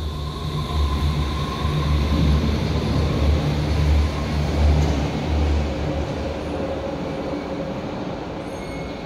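Berlin U-Bahn electric train pulling out of the station and running away along the platform. A deep rumble of wheels and running gear with a thin motor whine drops off after about six seconds, and the sound then fades as the train leaves.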